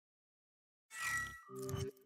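Synthetic sound effects in a virtual reality simulation: about a second in, a short falling swish, followed by a brief low pitched tone.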